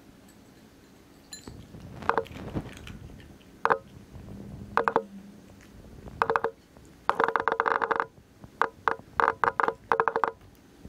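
Norfolk terrier crunching dry kibble: short bursts of crunching chews with pauses between, the longest run of crunches about seven seconds in.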